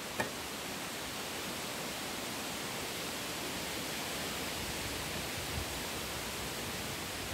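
Steady hiss-like outdoor noise with no pitch to it, with one sharp knock about a fifth of a second in as a bee smoker is set down on the ground.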